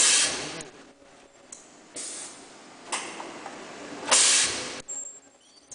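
Pneumatic ultrasonic welding machines venting compressed air in sudden short hisses, four in all, the loudest at the start and about four seconds in. A brief high-pitched tone sounds near the end.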